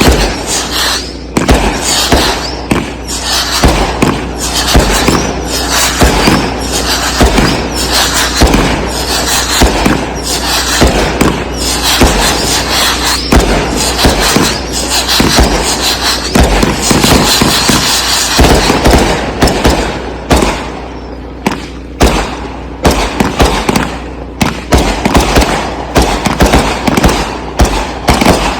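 Consumer aerial firework cakes firing in a rapid, continuous barrage of launches and bursts. The bursts run into a dense crackle from about 11 to 19 s, then thin out into more separate bangs.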